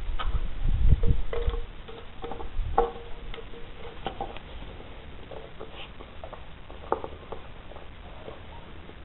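A puppy carrying and chewing a plastic water bottle: scattered crackles and taps of the plastic throughout, with a louder low rumble in the first second and a half.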